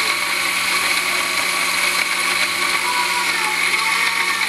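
Countertop jug blender running steadily at high speed, blending a thick raspberry smoothie with nuts and carrot in its glass jug.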